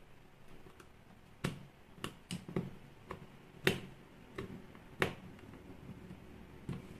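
Sharp clicks and taps of a small screwdriver working on a plastic headlamp battery case: about nine at irregular intervals, the loudest a little past halfway.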